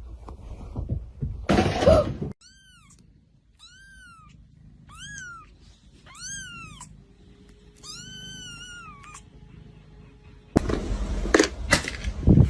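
A cat meowing five times, each meow rising and then falling in pitch, the last one the longest. A brief loud noise comes just before the meows, and near the end a sudden loud clattering noise takes over.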